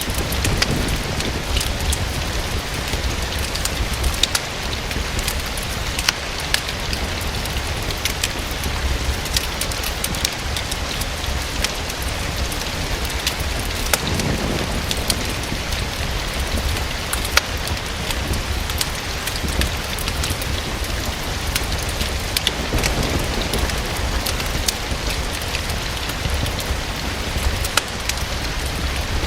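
Steady rain with a wood fire crackling in a fireplace: a constant even hiss over a low rumble, with scattered sharp pops and ticks.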